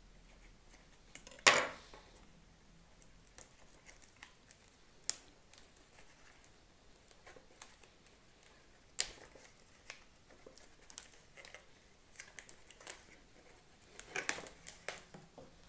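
A knife stabbing into and slitting the plastic shrink-wrap on a small cardboard product box, one sharp scrape about a second and a half in. Then scattered small clicks and crinkles as the wrap is torn and peeled off by hand, busier near the end.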